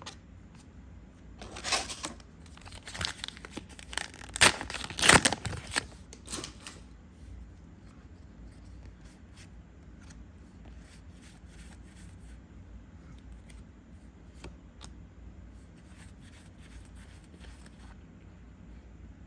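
A foil trading-card booster pack being torn open and crinkled, loud for a few seconds. Faint rustles and light ticks of handling follow.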